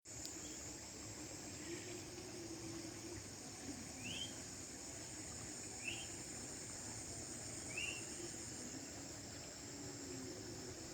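Steady high-pitched insect chorus of crickets, with a few short rising chirps about every two seconds.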